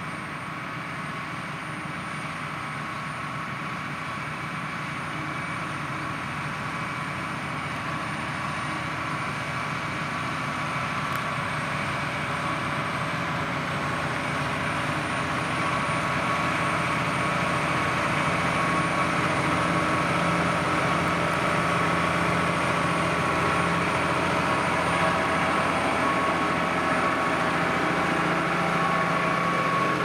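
New Holland T7.245 tractor's six-cylinder diesel working under load while pulling a Lemken reversible plough, with a steady whine over the engine note. It grows steadily louder as the tractor comes closer.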